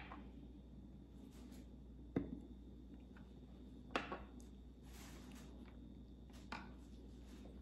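A few faint, short knocks of small glass bottles being picked up off and set against a table top, the loudest about four seconds in, over quiet room tone.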